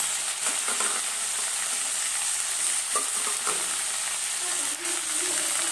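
Vegetables frying in a metal wok with a steady sizzle, as a spatula stirs them and scrapes against the pan with a few short clicks.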